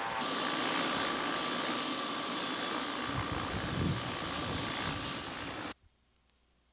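Helicopter running close by, a steady rush of rotor and engine noise. It cuts off abruptly to near silence about a second before the end.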